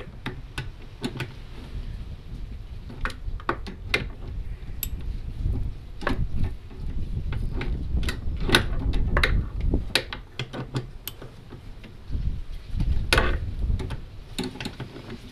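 Ratchet spanner clicking in short, irregular runs as the bolts of a newly fitted clutch hydraulic cylinder are tightened.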